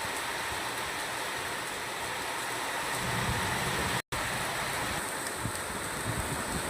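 Steady summer rain falling: an even hiss that cuts out for an instant about four seconds in.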